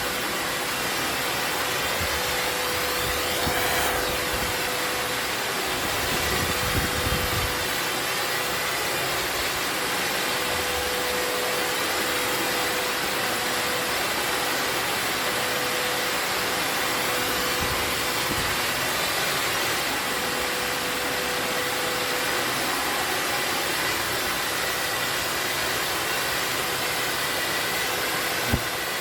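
Vacuum cleaner motor running steadily with a constant whine while hornets are sucked up, with a few low bumps of handling and a short knock near the end.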